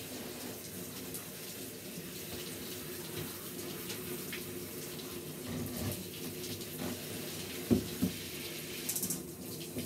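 Water running steadily from a handheld shower head as a dog is rinsed in a plastic tub. Near the end comes a sharp knock, followed by a brief rattle.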